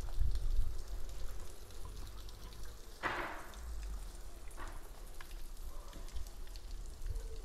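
Water from a tiered stone garden fountain falling into its basin: a steady patter of drops, with a short louder rush about three seconds in and a fainter one a second and a half later.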